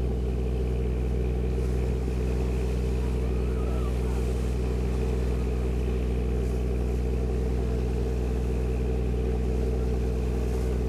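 Sightseeing boat's engine running steadily under way, a constant low hum with several steady tones above it.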